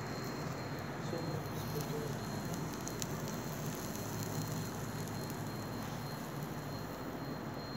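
Quinoa patty in a metal ring mould cooking in a hot non-stick frying pan: a steady, faint crackling sizzle with scattered small ticks, over a low steady hum.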